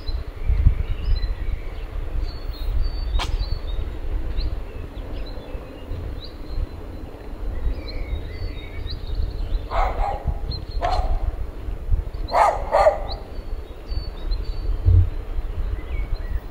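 A dog barking four times, about ten seconds in, the last two close together, over small birds chirping and a steady low rumble.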